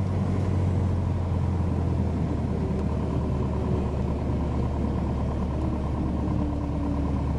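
Piper PA-28 light aircraft's piston engine running at low power, a steady drone with a strong low hum, heard from inside the cabin as the aircraft rolls along the ground after landing. A faint tone slides slowly lower in the second half.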